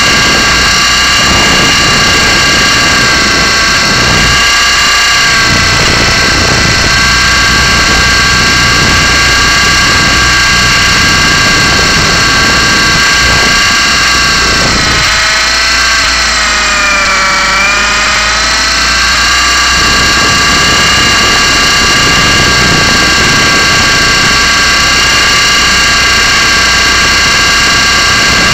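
Blade 120SR micro RC helicopter's electric motor and rotor running with a steady high whine. About halfway through the pitch sags for a few seconds and then climbs back.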